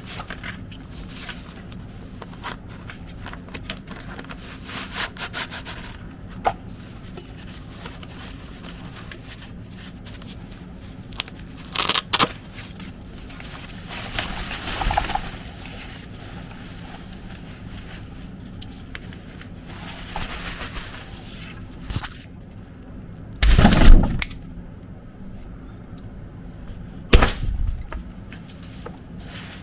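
Packaging and umbrella being handled during an unboxing: scattered clicks, taps and scrapes, with a louder rustling burst about four fifths of the way in and a shorter one near the end.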